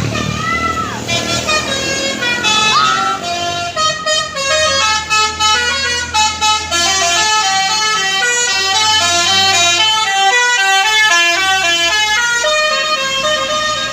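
Tour bus's Basuri multi-tone 'telolet' air horn playing a tune: two swooping tones, then a quick melody of stepped notes.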